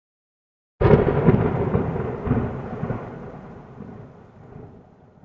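Deep rumbling boom of a volcanic eruption. It starts suddenly about a second in and dies away over some four seconds.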